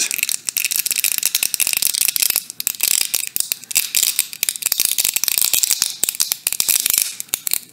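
Dense, irregular crackling and clicking of the Samsung Galaxy A54's battery adhesive tearing loose as a plastic opening pick is worked under the battery, the adhesive softened with alcohol.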